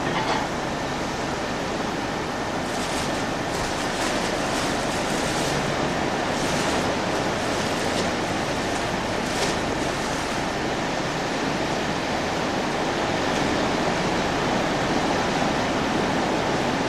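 Sea surf washing against the shoreline rocks: a steady rushing noise, with a few brief louder washes in the first half.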